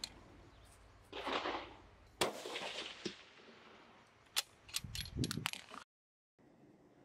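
A single 6.5 Creedmoor rifle shot, a sharp crack just after two seconds in with a short ringing tail. A short rushing noise comes before it, and a few mechanical clicks and rattles follow.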